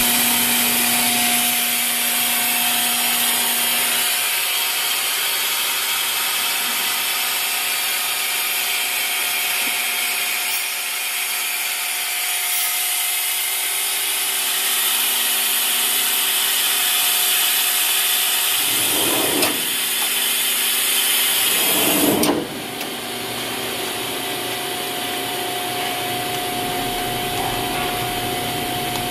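Okuma 2SP-150HM twin-spindle CNC lathe powered up and idling, giving a steady hum with a constant whine and a hiss. About 19 and 22 seconds in, two short sliding rumbles sound as its automatic doors close, the second ending in a knock.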